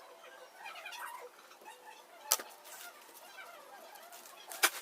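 Two sharp clicks, about two and a half seconds apart, the second the louder, over faint bird chirping in the background.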